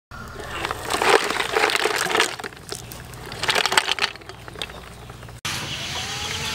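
Wet snail shells clattering and rattling against each other and a metal pot as they are tipped out onto a woven bamboo tray, in two busier stretches about a second in and again past the middle. Near the end the sound cuts abruptly to a steady background noise.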